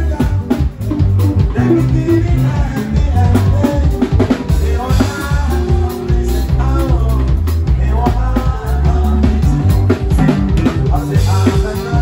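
Live band playing an upbeat song: drum kit, bass guitar and electric guitar, with singing.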